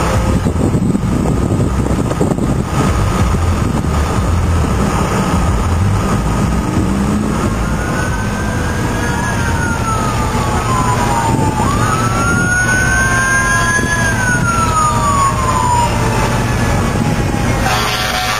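An emergency vehicle's siren wails slowly up and down twice in the middle. Under it runs a steady loud rushing roar with a low rumble, from the building fire and the fire engines working it.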